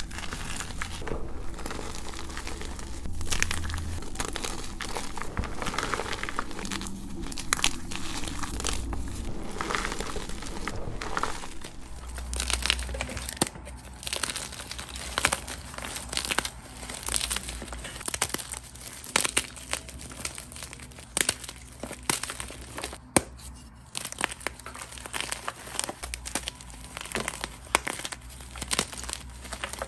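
Blocks of gym chalk crushed and crumbled by hand into powder: a dense, dry crackling and crunching. After about twelve seconds the crackles become more separate, with sharper snaps as the blocks break apart.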